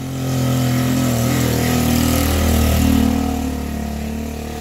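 An engine running steadily, growing louder toward the middle and then easing off.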